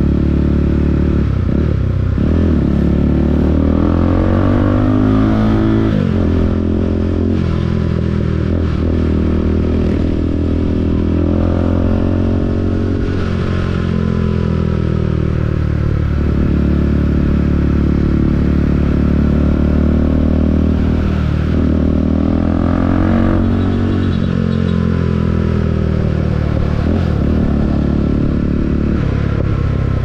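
2022 KTM RC 390's single-cylinder engine under way, heard from the rider's seat. Its pitch climbs and drops back again and again as the throttle is opened and closed.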